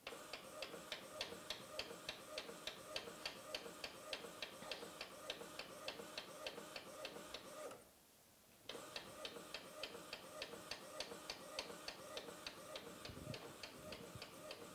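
Epson L210 ink-tank inkjet printer printing a photo: the print-head carriage shuttles back and forth, giving a steady motor hum under a fast, even run of ticks, about five a second. The sound stops for about a second just past halfway, then carries on.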